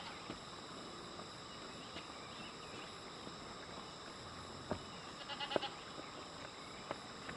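A short wavering bleat-like animal call, about five and a half seconds in, with a few faint knocks around it over a steady high-pitched hum.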